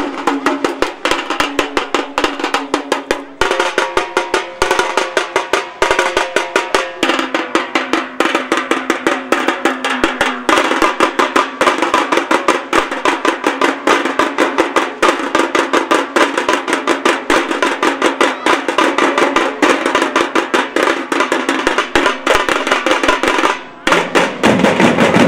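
Dhol and tasha drum ensemble playing a fast, dense drumming rhythm, many drums striking together. The drumming breaks off for a moment near the end and comes straight back in.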